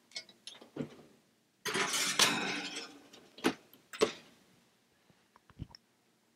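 A baking pan being put into an oven: a rattling clatter of metal and glass about two seconds in, then two sharp clanks a second or so later, with a few lighter clinks around them.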